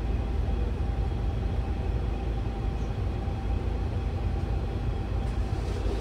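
Steady hum and low rumble of an Airbus A350 cockpit with its systems powered on the ground, with a faint steady whine running through it.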